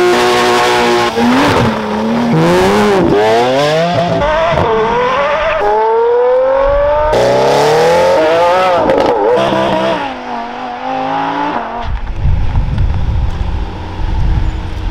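A Porsche 911 GT3 RS's naturally aspirated flat-six is held at high revs with wheelspin and tyre squeal. It then pulls away, revs rising through several quick gear changes. Next an Aston Martin Vantage GT8's V8 accelerates hard through the gears, and near the end comes the low rumble of a Lamborghini Aventador SVJ's V12.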